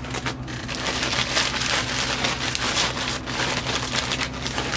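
Clear plastic zip-top bag crinkling and rustling steadily as it is squeezed and pressed closed around a bundle of sewing machine belts.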